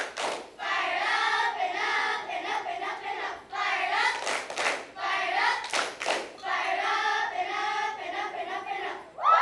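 A group of children singing together, with sharp hand claps in pairs three times.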